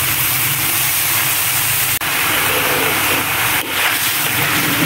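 Mushrooms and vegetables sizzling in a hot wok as they are tipped in and stirred with a spatula, a steady hiss over a low hum, with a momentary break about two seconds in.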